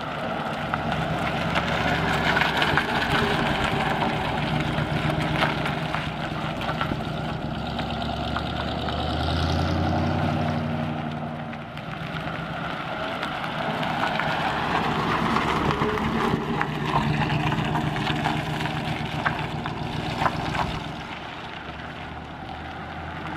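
1939 Cadillac's flathead V8 engine running, its pitch rising and falling a couple of times as the engine speed changes, under a steady rushing noise.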